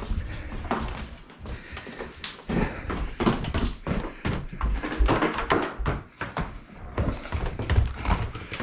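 Handling noise from a flat-screen TV and its wall-mount hardware: an irregular run of knocks, clunks and scrapes as the set is moved into place.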